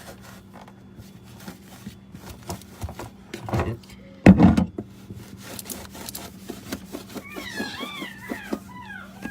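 Baby's voice in the room: a loud short cry about four seconds in, then high squealing calls that waver up and down in pitch near the end, over light clicks of wiping.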